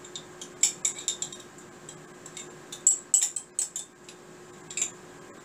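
A spoon scraping and clicking against the inside of a pesto jar as the last of the sauce is scooped out, in irregular clusters of short clicks and scrapes.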